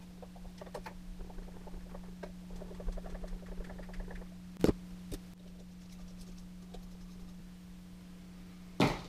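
Hand screwdriver turning small screws into a guitar's pickup mounting ring: faint rapid clicking and scraping, with a sharp click about four and a half seconds in and a louder knock near the end, over a steady low hum.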